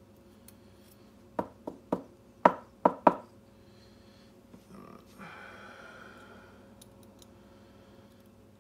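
About six sharp knocks in quick succession as a lock cylinder is handled and tapped while it is gutted of its pins and springs, followed a couple of seconds later by a short scraping rustle.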